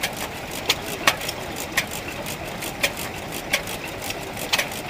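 Vintage horizontal stationary engine with twin flywheels running slowly. Sharp beats come at uneven intervals, roughly one a second, over a steady mechanical clatter.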